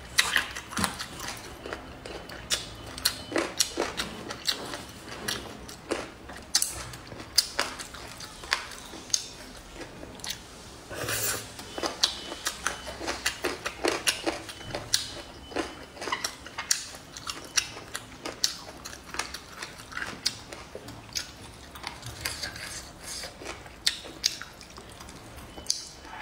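A person chewing boneless chicken feet with the tendons left on, close to the microphone: a steady run of wet, irregular smacks and sharp clicks.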